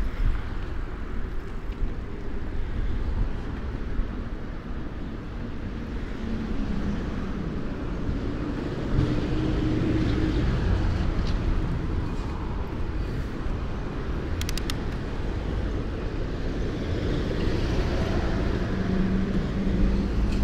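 Street traffic noise: passing vehicles over a steady low rumble, with faint engine hum that rises and fades twice.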